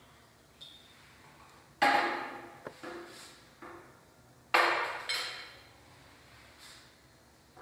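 Glassware set down on a tabletop: two loud knocks with a short ring, about two seconds in and again about four and a half seconds in, with a few lighter clinks of glass between.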